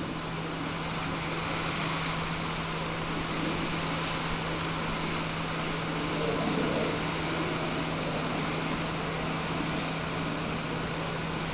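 Steady electric hum with an even hiss from a homemade RC truck's motors as its air-cannon turret is swung by remote.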